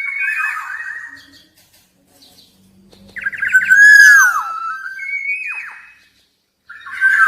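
Black-naped oriole singing: several fluty whistled phrases with downward-sliding notes, separated by short pauses.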